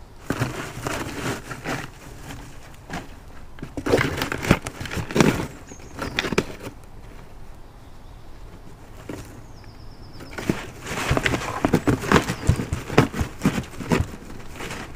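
Arctic fox rummaging in a hay-filled cardboard box: rustling straw and crackling cardboard come in three spells, with quieter pauses between.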